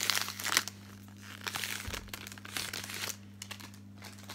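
Clear plastic cellophane wrap crinkling as it is pulled off a cardboard perfume box. It is loudest in the first half-second, then comes in shorter scattered crackles that die away about three seconds in.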